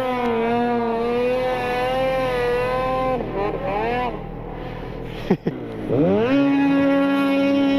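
Snowmobile engine running at high revs under throttle. The revs fall away about three seconds in, a brief sharp sound comes just after five seconds, then the engine revs back up and holds steady.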